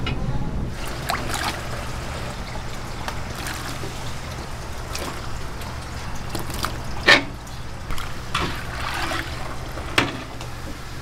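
Thin sauce with chopped vegetables sloshing and trickling in a large wok as a ladle stirs it, with two sharp knocks about seven and ten seconds in. A gas burner hums steadily underneath.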